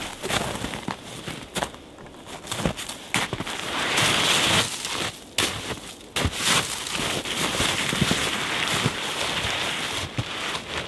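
Footsteps crunching in snow, then the crinkling rustle of a Jerven bag's fabric being lifted and shaken out over a foam sleeping mat.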